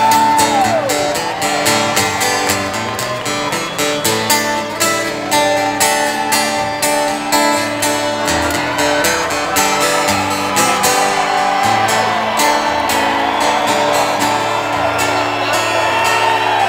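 Instrumental break in a song: acoustic guitar strumming over a steady beat, with a lead line playing bending, gliding notes.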